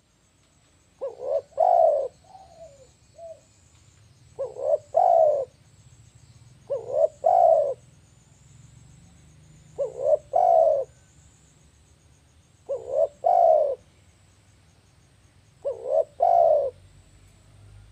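Spotted dove cooing: six three-note phrases about three seconds apart, each two short coos followed by a longer, louder one, with a few softer notes after the first phrase.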